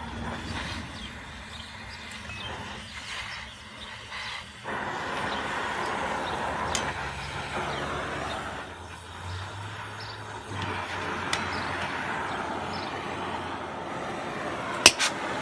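Gas torch hissing steadily while heating steel bar stock for bending, growing louder about a third of the way in. Two sharp knocks near the end.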